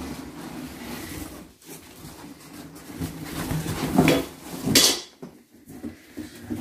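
A cardboard box being tipped and rustled as an artificial Christmas tree's folding metal stand slides out, with metal clanks on a tile floor and one loud clatter about two-thirds of the way in.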